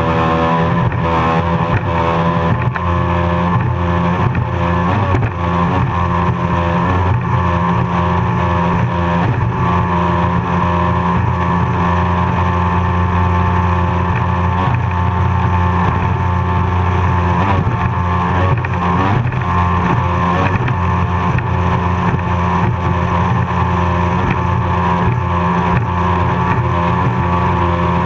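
Offshore racing powerboat's engine running hard at speed, a steady loud drone heard from on board. The engine note dips briefly and recovers about two-thirds of the way through.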